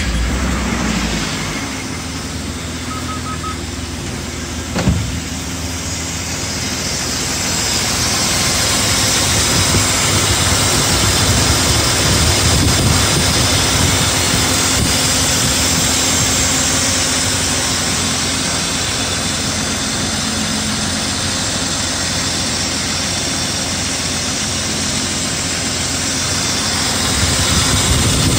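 BMW E34's M50 straight-six engine idling steadily just after starting, with no tapping from the hydraulic lifters on fresh 5W-40 oil. A single short knock about five seconds in.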